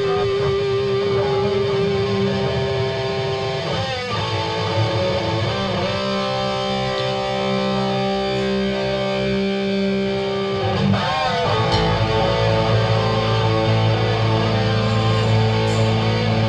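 Live rock band's distorted electric guitars playing the intro, long held notes with wavering bends; the low end gets much heavier about twelve seconds in.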